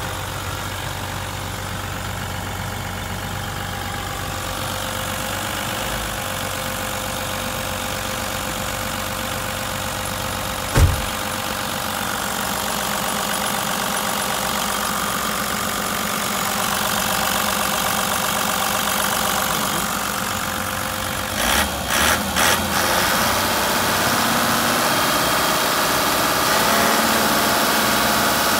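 Toyota 1HD-FTE 4.2-litre straight-six turbodiesel of a Hino Liesse II bus idling steadily, heard with the engine cover open. A single sharp thump comes about eleven seconds in, and a few quick knocks come around twenty-two seconds.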